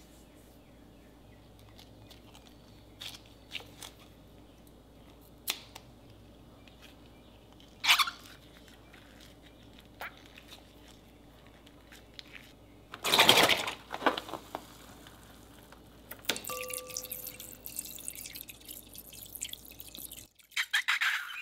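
Glue and water squeezed out of rubber balloons into a glass bowl: scattered soft taps, then a louder liquid rush about two-thirds of the way in, and a longer stretch of splashing and trickling near the end.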